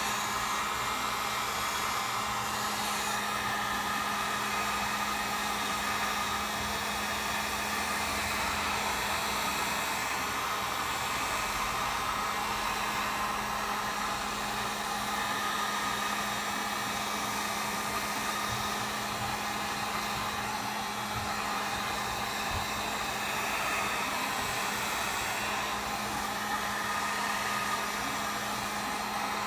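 Handheld Wagner heat gun running steadily: a constant blowing hiss with a low hum underneath.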